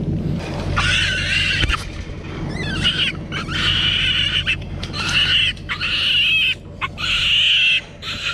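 Wild hog piglets squealing, a run of repeated high-pitched squeals one after another starting about a second in. A low steady hum runs underneath.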